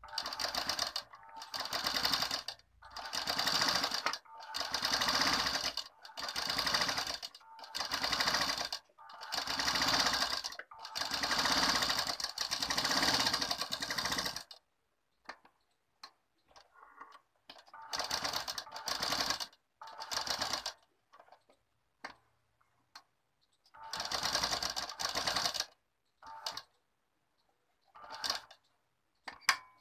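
Domestic straight-stitch sewing machine stitching a lining to a blouse piece, running in runs of one to three seconds with brief stops between them. After about fifteen seconds the runs become fewer and shorter, down to quick bursts near the end.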